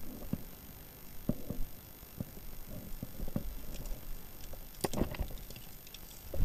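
Irregular soft thumps and rustling from movement, with a sharper crack about five seconds in.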